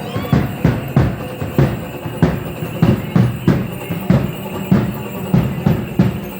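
Drum beating a steady dance rhythm, about three strokes a second.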